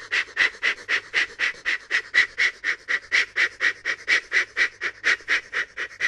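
Steam engine puffing along: a steady rhythm of short breathy chuffs, about four a second.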